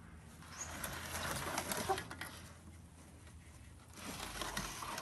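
Large round metal roasting tray scraping over the floor of a brick oven as it is dragged out in two pulls, the second starting about four seconds in.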